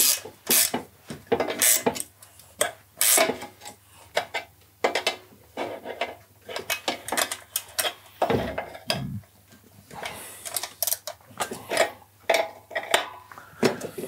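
Wrenches working on a motorcycle's front axle nuts: irregular metallic clicks and clanks of tools against metal, with a couple of dull thumps about eight and nine seconds in.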